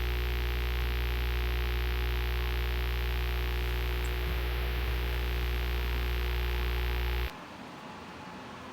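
Loud electronic hum-and-hiss drone, a deep steady hum under a static hiss, that cuts off suddenly about seven seconds in, leaving a fainter background noise.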